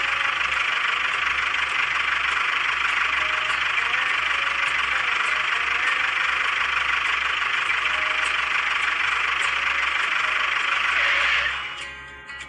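Miniature model tractor's engine running steadily, an even rushing noise without change in pitch. It fades out about eleven seconds in as acoustic guitar music comes in.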